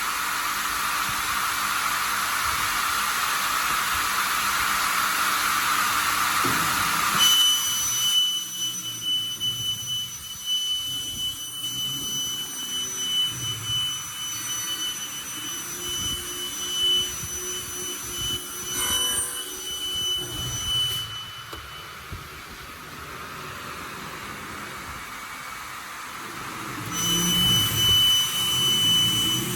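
5-axis CNC end-mill machine running a test of its newly loaded program: a steady hissing spray for the first several seconds, then a steady high whine that stops about two-thirds of the way through and comes back near the end.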